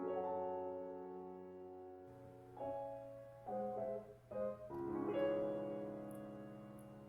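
Background piano music: slow, sustained piano chords and notes, each struck and left to fade.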